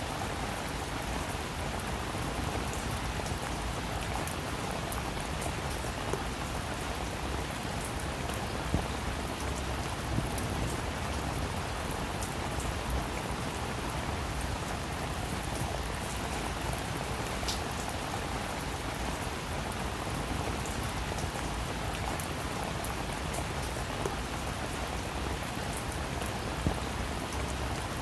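Steady rain falling, with individual drops pattering on a surface.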